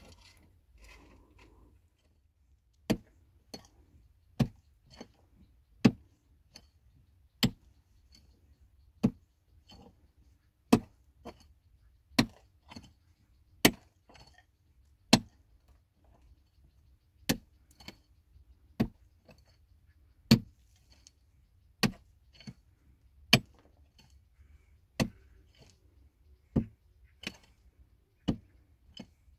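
Steady, rhythmic chopping blows of a hand tool, starting about three seconds in: a heavy strike about every second and a half, most followed by a lighter one, with a short pause about halfway through.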